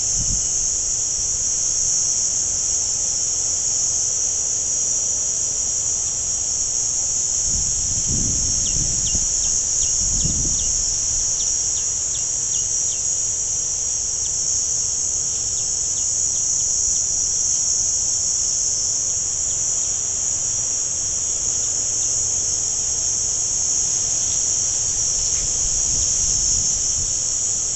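Insects calling in a steady, high-pitched buzzing chorus that never breaks.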